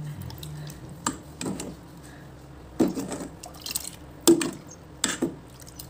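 A metal ladle stirs coconut milk in a steel pot, with liquid sloshing and several sharp knocks of the ladle against the pot, the loudest about four seconds in.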